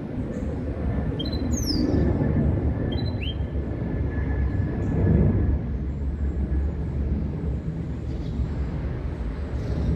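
A few brief, high chirps from a caged goldfinch × canary hybrid (mule), twice in the first few seconds, over a steady low rumble of background noise that swells about five seconds in.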